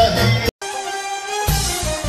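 Music with a beat. It cuts out abruptly for an instant about half a second in, then continues with a different passage marked by low drum hits.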